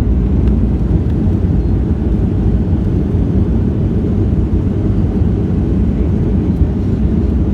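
Steady low roar of a passenger airliner heard from inside the cabin during landing, the noise of its engines and the air rushing past.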